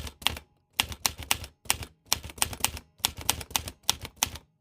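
Sharp clicks in quick clusters of two to four, a little more than one cluster a second, with brief silences between the clusters.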